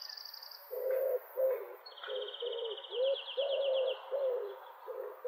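Birds calling: a run of short, low hooting calls about twice a second, with a high, fast trill running over them.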